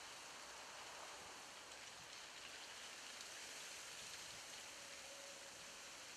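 Faint, steady hiss of outdoor background noise, with a brief faint tone about five seconds in.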